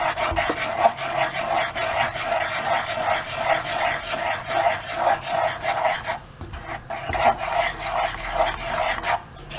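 A spoon scraping through dry roasted flour against a steel saucepan in quick repeated stirring strokes, a rasping scrape with each stroke, with brief pauses about six and nine seconds in.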